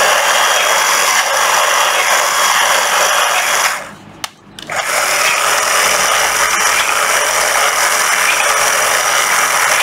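Hitachi CL 10D 9.6 V cordless threaded-rod cutter running with no rod in its jaws, its motor and gear drive cycling the cutting blades. It runs twice: once for about four seconds, then, after a short stop, for about six more.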